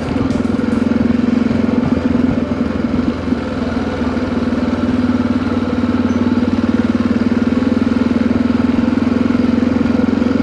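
Yamaha XT660Z Ténéré's single-cylinder engine running at a steady, even pace as the motorcycle rides along a dirt track.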